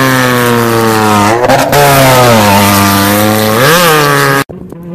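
Off-road race vehicle's engine running hard and loud, its pitch sagging slowly, wavering briefly about a second and a half in, then revving up again near the end. It cuts off suddenly just before the end, leaving a much quieter engine sound.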